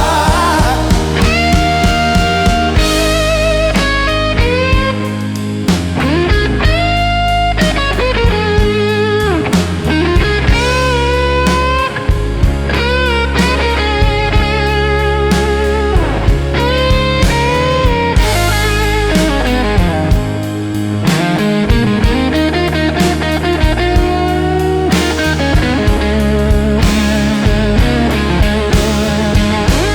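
Slow electric blues instrumental: a lead electric guitar solo full of string bends and wide vibrato, over bass and a steady drum beat.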